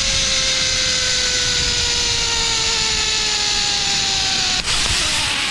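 Zip line trolley pulleys running along the steel cable, a steady whine whose pitch slowly falls as the rider slows, over a rush of wind. About four and a half seconds in, the whine stops abruptly, leaving only a windy hiss.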